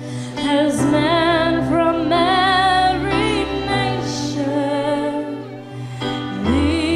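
Slow worship song: a woman singing long, held notes with a wide vibrato over sustained instrumental chords, with a new low bass note coming in near the end.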